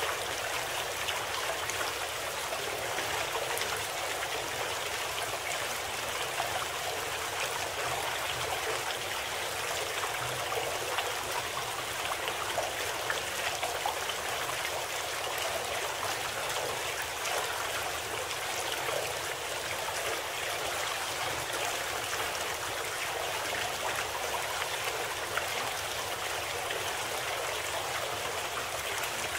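Steady, unbroken running-water sound, like a flowing stream, used as the masking track of a subliminal audio program.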